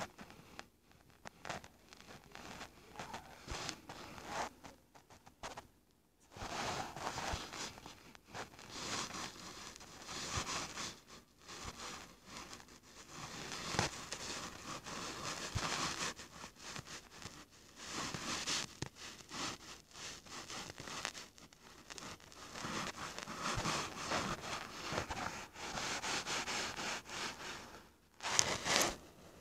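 Irregular scratchy rustling noise, coming and going in short bursts with brief gaps: the handling noise of a phone or tablet picked up by its own microphone as fingers work the touch screen.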